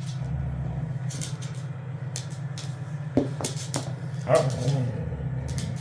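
Husky dogs at play, with a short vocal call from one dog a little over four seconds in and a few light clicks and knocks, over a steady low hum.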